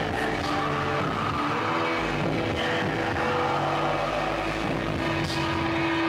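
Live noise music in the band's 'trip metal' style: a dense wall of harsh electronic noise with droning held tones running through it, steady in loudness, with a sharp click about five seconds in.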